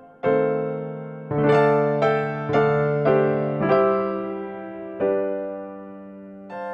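Background music: piano-like keyboard chords, each struck sharply and then ringing away, with new chords coming roughly every half second to second.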